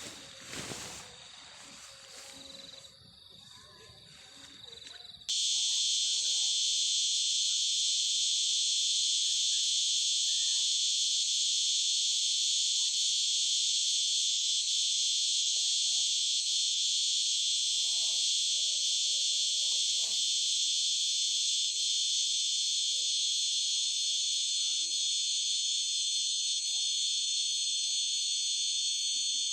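Dense, shrill chorus of insects droning steadily, cutting in abruptly about five seconds in; the first seconds are quieter and mixed.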